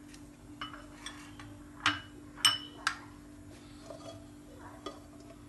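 A few light clinks and taps of kitchenware, the loudest about two and a half seconds in ringing briefly, over a steady low hum.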